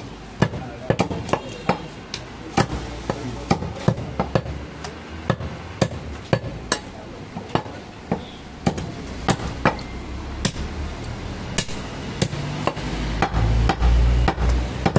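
Butcher's knife chopping goat meat on a wooden log chopping block: sharp chops about two a second, unevenly spaced. A low rumble comes in near the end.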